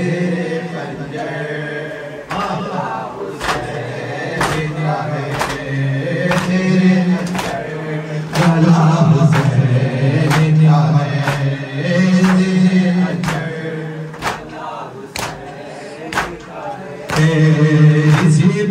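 Group of men chanting a nauha (Shia lament) in unison, with sharp strokes of matam, hands striking chests in rhythm, about once a second from about two seconds in.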